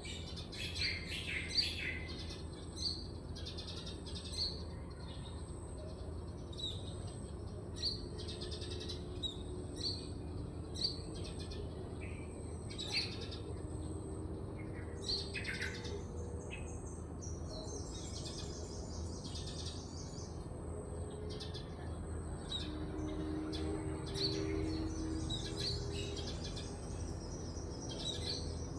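Small birds chirping: short chirps repeated about once a second, with a few busier bursts of chatter, over a steady low hum.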